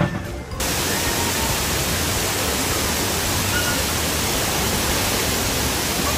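Steady rushing and splashing of water pouring down a water slide into a shallow splash pool. It starts abruptly about half a second in.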